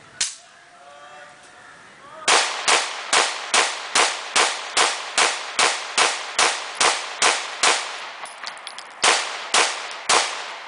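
Caracal F 9mm pistol firing: a single shot, then a rapid string of about fourteen shots at roughly two and a half a second, then three more shots about half a second apart near the end.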